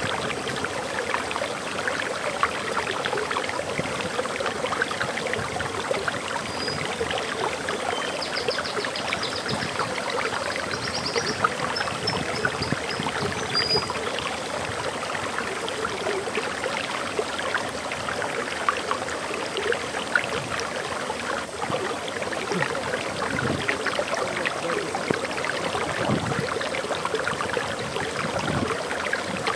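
Water flowing over a waterfall: a steady, splashing rush. A bird chirps a few short, high notes above it from about a quarter to halfway through.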